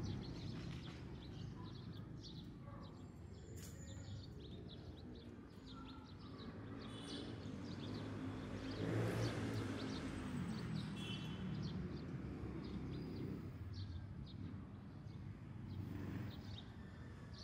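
General ambience: birds chirping over a low steady rumble that swells and fades about halfway through.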